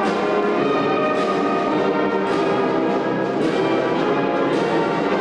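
Brass band music with a strong beat that lands about once a second.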